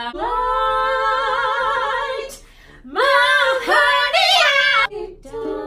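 Two women singing: a note held with vibrato for about two seconds, a brief pause, then a louder sung phrase with sliding pitch, softening near the end.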